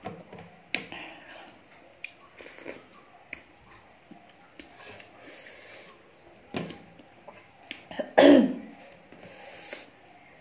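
Eating at a steel plate: fingers mixing rice and a spoon scooping curry, with small clicks and scrapes. A short, loud cough about eight seconds in.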